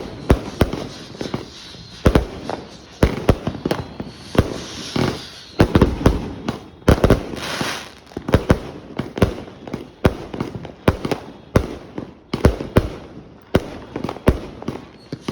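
'Mad as a March Hare' 100-shot firework cake firing: a fast, irregular run of sharp bangs, two or three a second, with two short stretches of hissing about four and seven seconds in.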